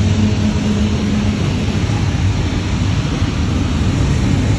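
Double-stack container freight train rolling past at close range: a loud, steady rumble of wheels and well cars on the rails, with a low steady hum for about the first second and a half.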